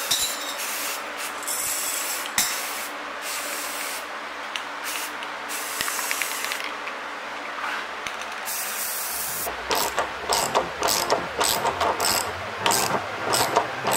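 Aerosol spray-paint can hissing in several short bursts as white paint is sprayed onto the go-kart frame. About nine and a half seconds in, background music with a steady beat comes in.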